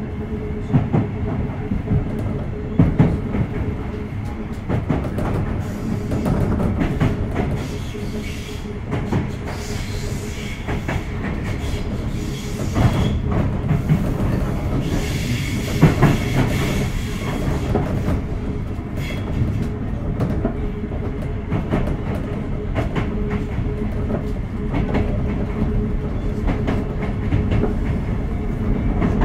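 Sotetsu 8000 series electric train running at speed, heard from inside the car: a continuous rumble with wheels knocking over rail joints, under a steady hum.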